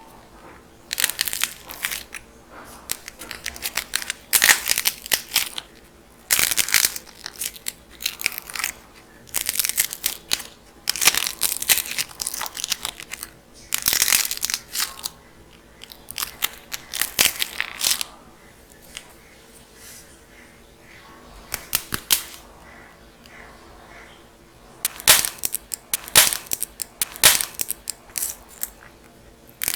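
Dried clay being cracked and crumbled in a run of short, crisp crackling bursts separated by brief pauses, with a longer lull past the middle.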